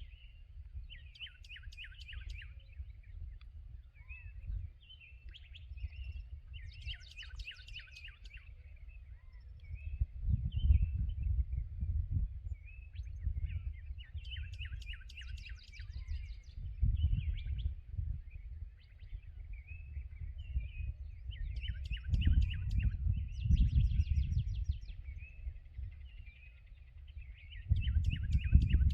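Songbirds singing outdoors, with a short trilled phrase repeated every few seconds over softer twittering. Under them a low rumble swells several times and is louder than the birdsong at its peaks.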